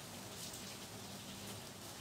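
Tomato-onion masala with a little water simmering in a steel kadai: a faint, steady sizzle with small crackles, as it cooks down until the oil separates.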